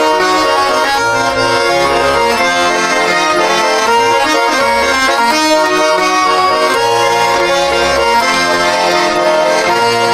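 Russian garmon (button accordion) playing an instrumental passage between sung verses: a melody over held chords, with a pulsing bass accompaniment.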